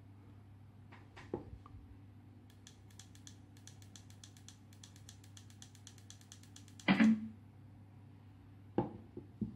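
A hand handling a small fabric-covered Bluetooth speaker. A few clicks come about a second in, then a fast run of fine ticks for several seconds. A loud knock follows near the seventh second, and two or three lighter knocks come near the end.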